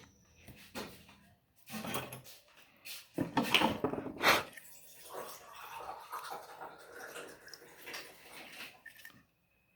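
Handling sounds at a workbench while a buzzer is soldered onto a microwave control board: a few irregular knocks and clatter, the loudest a little after three seconds in, then a softer uneven hiss.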